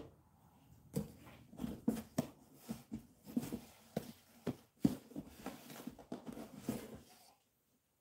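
Old clothbound hardcover books being handled and stacked: a run of light knocks and rustles as covers are set down, picked up and slid against one another, stopping near the end.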